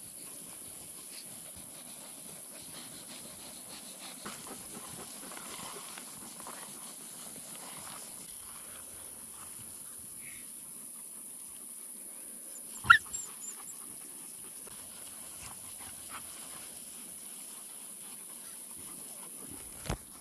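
Quiet pasture ambience with Maremma livestock guardian puppies moving about. About thirteen seconds in there is one short, sharp yip from a puppy, and a smaller click-like sound comes near the end.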